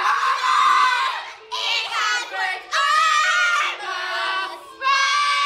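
Several young girls singing loudly together in high voices, with no instrument behind them, in three phrases with short breaks between.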